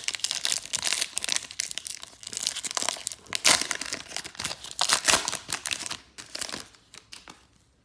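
A trading card pack wrapper being torn open and crumpled: dense crinkling and crackling for about six seconds, then a few quieter crackles as it dies down.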